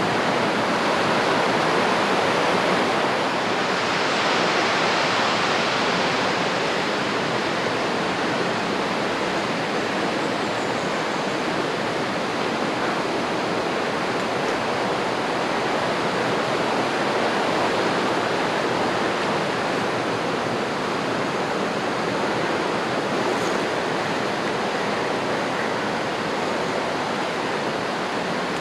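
Steady rushing water, a continuous even hiss that holds the same level throughout.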